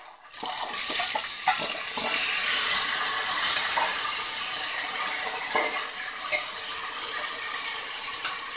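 Boiled black chickpeas sizzling as they go into hot oil and whole spices in a pressure cooker: a steady hiss that starts a moment in, with a few clinks of a steel spoon against the pot.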